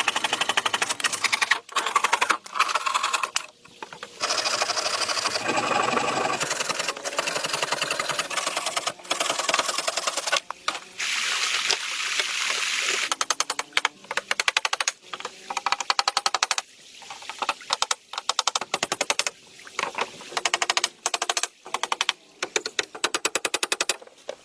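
Rapid, dense clattering of taps or knocks, many a second, coming in stretches with sudden breaks between them.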